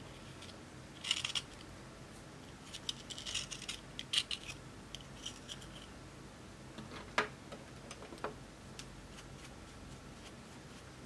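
Small metal spatula scraping pressed powder makeup out of a compact in short scratchy bursts, followed by a few sharp clicks of metal on the compact or dish, the loudest about seven seconds in.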